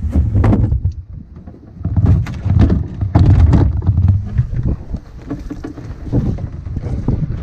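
Knocks, bumps and rustling as a canoe is hoisted onto a portager's shoulders and carried, with loud low rumbling handling and wind noise on the microphone.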